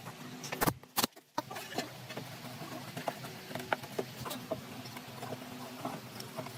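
Two sharp clicks near the start, then many small, irregular light ticks and taps over a low steady hum.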